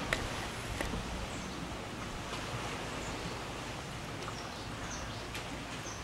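Steady outdoor background hiss with a few faint, short, high chirps scattered through it and a couple of sharp clicks about a second in.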